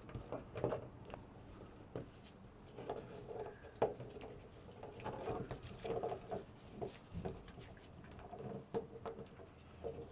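Two Cavalier King Charles Spaniel puppies scuffling and wrestling on a wooden deck, their paws and claws pattering and clicking on the boards, with scattered sharp knocks throughout.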